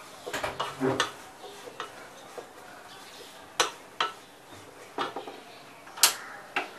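Wooden spatula stirring dry grated coconut in a non-stick pan, with irregular taps and scrapes of the spatula against the pan and a louder knock near the end.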